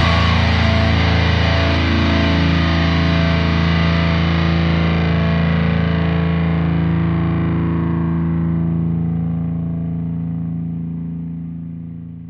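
Background music: one sustained distorted chord held and ringing on, fading out over the last few seconds.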